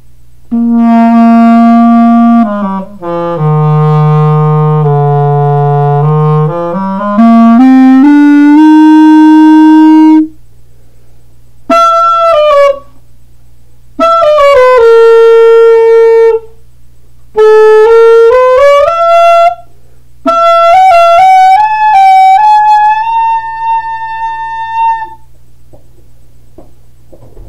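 F.E. Olds Ambassador wooden clarinet played in five short phrases of held notes with pauses between them. The first and longest phrase steps down into the low register and climbs back up.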